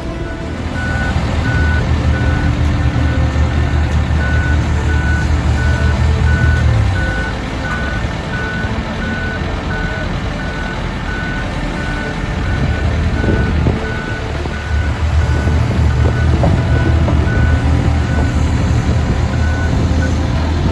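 Backup alarm of a heavy paving vehicle beeping steadily over its diesel engine, which runs louder for a stretch early on and again in the second half.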